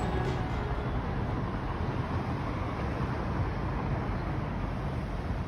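Shinkansen bullet train running: a steady low rumble with a hiss over it, unchanging throughout.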